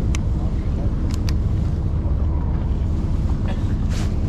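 Fishing boat's engine running steadily with a low drone, with a few sharp clicks: one near the start, two close together about a second in, and one near the end.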